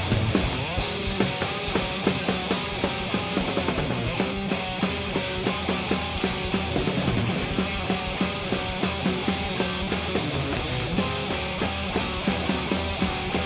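Loud rock band music with distorted electric guitar and a fast, steady drum beat.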